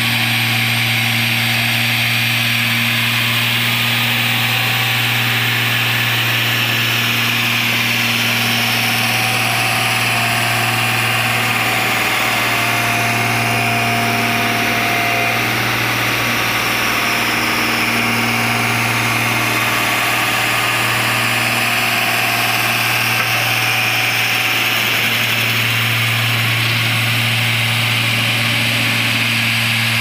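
Single-drum road roller's diesel engine running steadily as the machine crawls over the road bed, with a steady low hum that swells and fades slightly.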